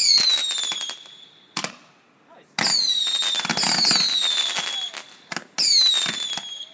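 Fireworks going off in quick succession: whistles falling in pitch, each over crackling pops, three times, with a single sharp bang between the first two.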